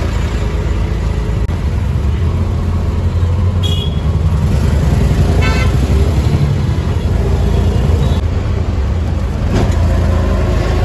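Auto-rickshaw engine running with a steady low rumble, heard from the passenger seat while riding through city traffic. Two short horn toots, about four and five and a half seconds in.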